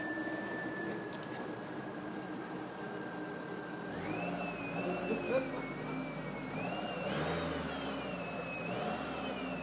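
A just-started vehicle engine running with a thin, high whistle over it. The whistle sinks slowly at first. About four seconds in it jumps higher and then wavers up and down, climbing again near seven seconds.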